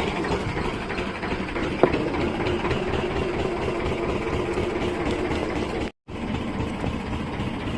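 Fishing boat's engine running steadily at low revs. The sound cuts out for an instant about six seconds in.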